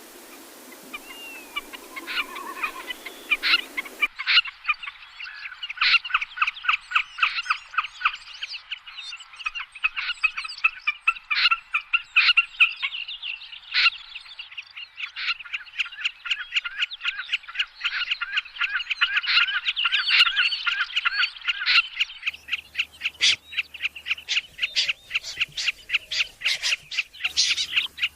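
Recorded bird calls from a night net-trapping lure track: a long, fast run of short, sharp, high chipping notes, several a second. It is spliced from separate recordings, with a change about four seconds in and again past the twenty-second mark.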